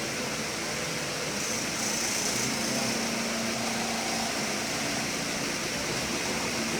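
Steady hum and hiss of a running fan, with a faint steady tone underneath and no sudden events.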